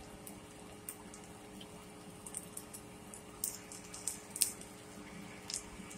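Quiet room tone: a steady low hum with scattered faint clicks and crackles, a few of them sharper in the middle of the stretch.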